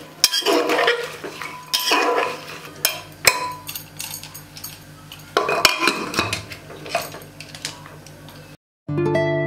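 Steel spoon clinking and scraping against the side of an aluminium pressure cooker as chopped vegetables are tipped in and stirred, in irregular clatters. Acoustic guitar music starts suddenly near the end.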